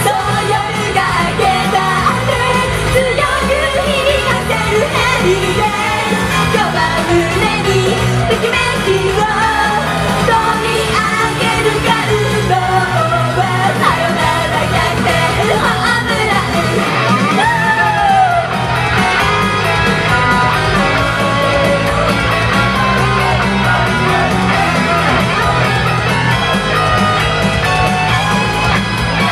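Live J-pop idol performance: several female voices singing into microphones over a loud pop backing track, with shouts from the audience mixed in.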